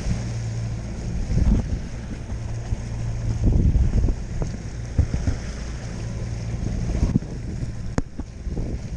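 Small boat's outboard motor running steadily at trolling speed through a choppy sea, with wind buffeting the microphone. A single sharp click comes near the end.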